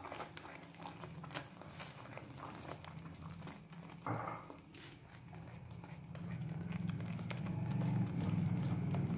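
Silicone spatula stirring and scraping thick egg halwa against a steel pot as it is roasted with khoya, with soft irregular knocks and scrapes. A low hum grows louder in the second half.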